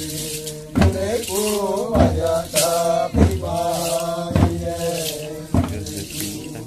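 Tuyuka ritual dance song: a group chanting together, the pitch rising and falling, over a beat stamped out about every 1.2 seconds.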